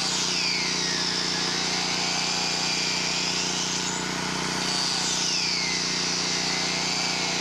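A 4-inch angle grinder with a metal/concrete cutting blade is cutting slots into well casing pipe to make well screen. Its high whine drops in pitch as the blade bites into the pipe and rises again about four seconds in as it frees up. The whine drops again about a second later.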